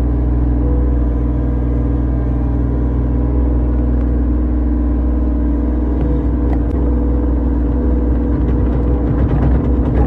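Excavator's diesel engine running steadily, heard from inside the operator's cab.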